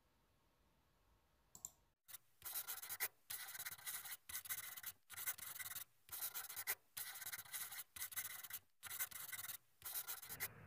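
Writing sound effect: scratchy pen strokes on a board, starting about two seconds in and coming in short strokes with brief pauses between them.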